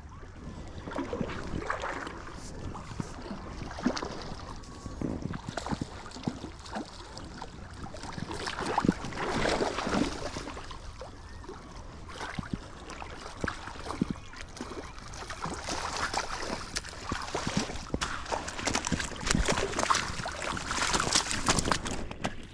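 River water splashing and sloshing irregularly, with louder stretches about midway and again near the end.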